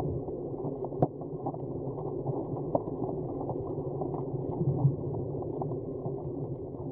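Underwater ambience, heavily muffled: a steady low rush with scattered faint clicks.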